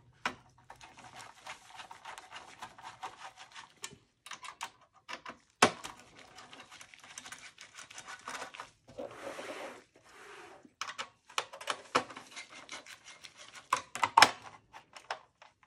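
Screwdriver tip scraping and clicking against the retaining screws of a PC's CPU blower cooler, with light knocks of the metal case being handled: irregular small clicks and scrapes, with a longer scrape about nine seconds in. The screwdriver does not fit the screws.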